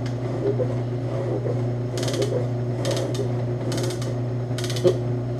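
Ammco 7-inch metal shaper running with a steady motor hum, its ram stroking back and forth. From about two seconds in, the lathe-bit cutter scrapes through the steel on four forward strokes in a row, each a short hiss about once a second, taking a roughly ten-thousandths chip.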